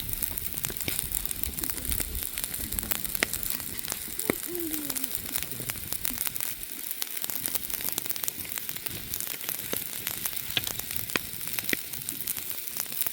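Open wood fire crackling and sizzling, a steady hiss with many small sharp pops.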